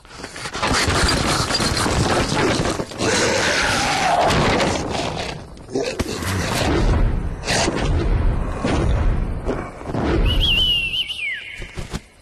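Cartoon slapstick sound effects: a long run of crashing, tumbling thuds and booms, then, about ten seconds in, a wavering whistle that slides down in pitch.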